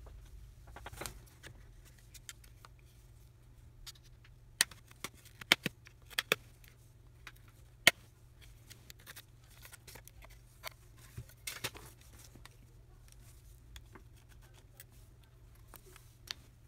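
Sharp clicks and snaps of a OnePlus 3T smartphone being gripped and pried apart by hand, its display assembly unclipping from the frame. The loudest snaps come in a cluster between about four and eight seconds in, over a faint steady low hum.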